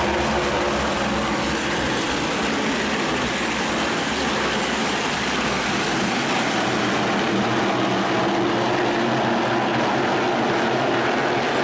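A field of NASCAR Whelen Modified race cars running at racing speed, their V8 engines making a steady, continuous din.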